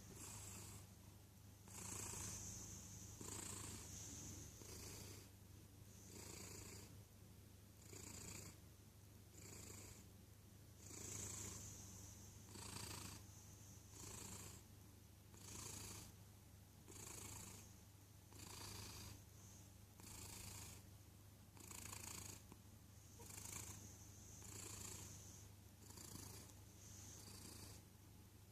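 A cat snoring softly, with a rhythmic, wheezy breath sound about every one and a half to two seconds over a steady low hum.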